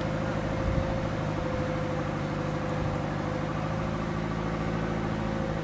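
Kubota DC-105X combine harvester's diesel engine running steadily under load as the machine cuts and threshes rice, with a steady whine from its machinery.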